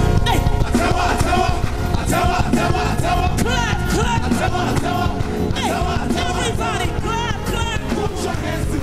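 Background music: a song with a singing voice over instrumental accompaniment and a beat.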